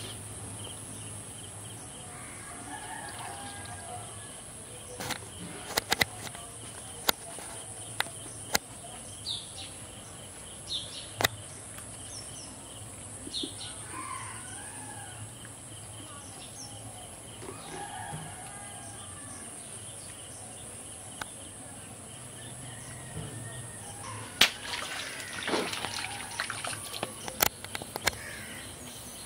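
Roosters crowing several times, a few seconds apart, with scattered sharp clicks and knocks in between.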